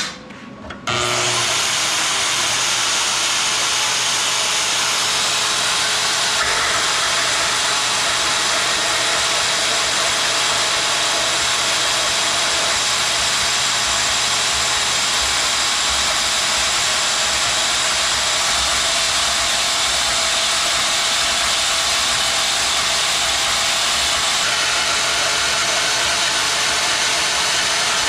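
Power tool cutting through 2-inch steel angle iron. It starts just under a second in and runs on steadily as one long cut.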